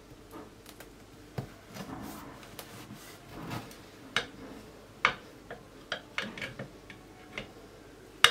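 Knife sawing down through a loaf cake topped with chocolate glaze and flaked almonds: soft, irregular clicks and crackles as the blade works through the glaze and almond flakes, with a few sharper ticks, the sharpest near the end as the slice comes free.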